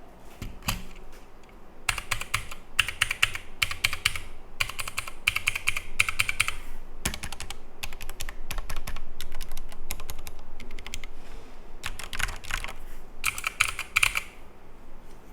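Typing on a Logitech G Pro X mechanical keyboard fitted with Gateron Black linear switches lubed with Krytox 205g0: quick runs of key presses in bursts of about a second, with short pauses between them.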